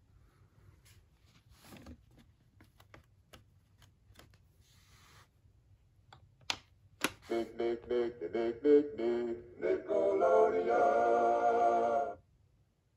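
Nickelodeon Talk Blaster toy telephone playing an electronic sound effect through its built-in speaker after its red button is pressed. It starts as a run of short synthesized notes, turns into a held, buzzing chord-like tone for about two seconds, and cuts off abruptly. A few faint clicks come before it.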